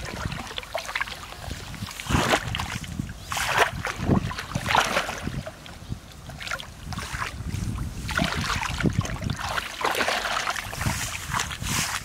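Water splashing and sloshing in irregular strokes, with wind rumbling on the microphone.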